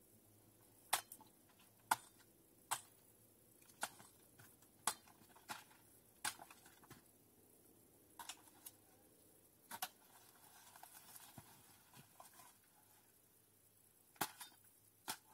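Sharp snaps of plant stems in dense undergrowth, about a dozen at irregular intervals of roughly a second, with soft rustling of leaves and a gap of a few seconds before the last few snaps.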